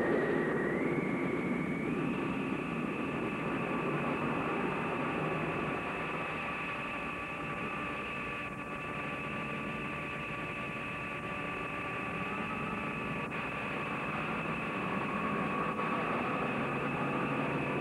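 Sci-fi film sound effect of a rocket engine in flight: a steady rushing noise under a high whine that steps up in pitch over the first two seconds, then holds.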